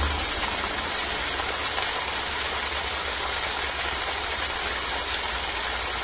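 Water cascading down a stepped stone spillway and splashing into a shallow pool below: a steady rush of falling water.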